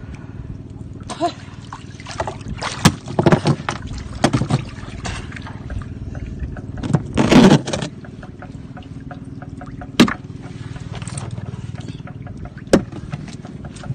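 A small motor running steadily, with scattered sharp knocks and a louder rush of noise about seven seconds in.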